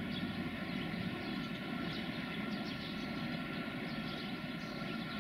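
Steady hum and whine of a BB 25500-class electric locomotive's motors and cooling blowers as it rolls slowly in at the head of a loaded freight train.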